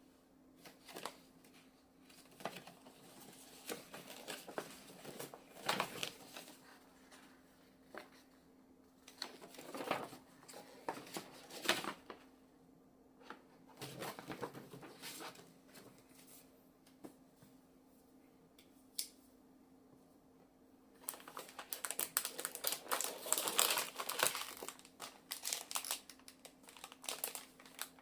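Packaging being unwrapped and handled, crinkling and rustling with scattered taps. It is sparse at first and becomes much busier and louder about three-quarters of the way through.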